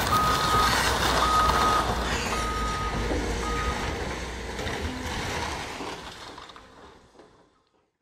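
Reversing alarm on a heavy vehicle beeping four times, about once a second, over a low engine rumble. The beeps stop about four seconds in, and the rumble fades away to silence.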